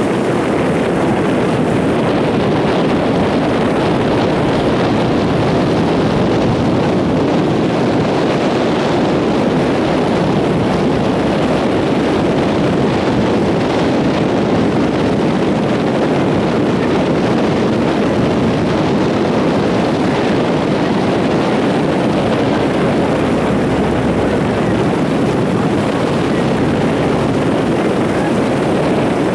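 Steady drone of a motor launch running at speed, mixed with wind buffeting the microphone.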